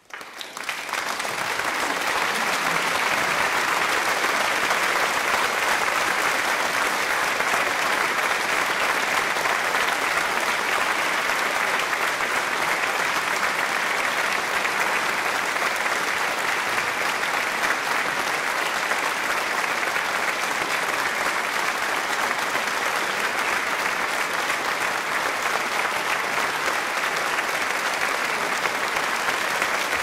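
Audience applauding: many hands clapping in a dense, continuous patter. It swells up from silence over the first second or two, then holds at an even level.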